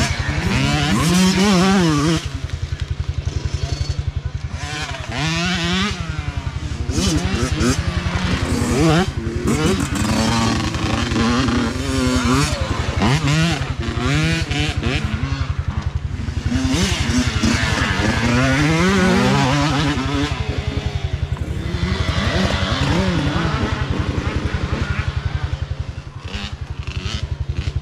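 Youth dirt bike engines revving as several riders pass one after another, the pitch climbing and dropping over and over with throttle and gear changes.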